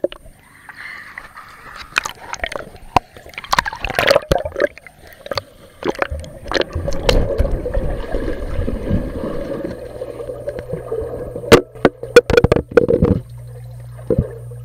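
Underwater sound picked up by an action camera submerged in a swimming pool: gurgling, churning water with many sharp knocks and bumps against the camera housing. A steady low hum comes in about two-thirds of the way through.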